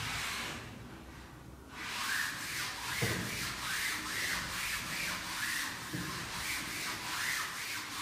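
Blackboard eraser wiping chalk off a chalkboard in repeated back-and-forth scrubbing strokes, about two or three a second, starting about two seconds in. A soft knock comes about three seconds in and another about six seconds in.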